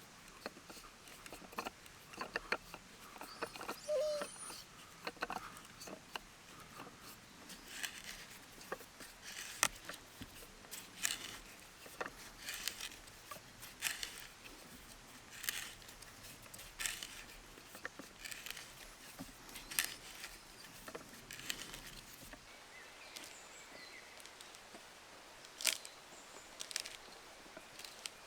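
Knife carving wood: a run of short, sharp shaving strokes, about one every second and a half.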